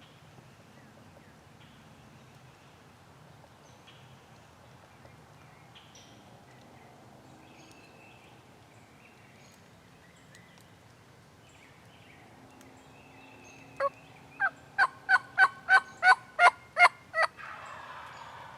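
A run of about eleven loud turkey yelps, evenly paced at about three a second, in the last few seconds. Faint songbird chirps come before it.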